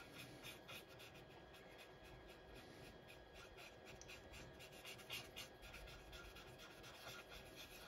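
Faint scratchy rubbing of a dry cotton bud worked in small circles over a plastic model tank's hull, blending weathering pigment into the paint, in soft repeated strokes.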